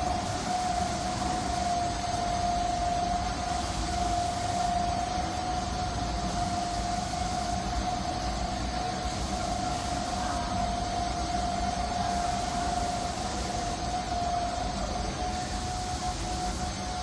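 Industrial machinery running steadily: one unbroken mid-pitched whine that holds its pitch over a constant rushing noise.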